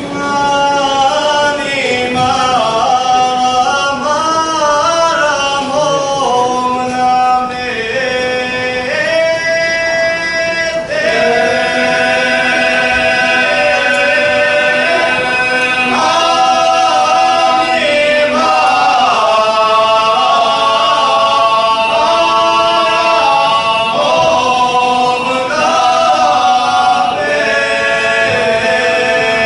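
Male vocal group of five singing a traditional Serbian folk song a cappella in several parts, the voices moving together in phrases with long held notes.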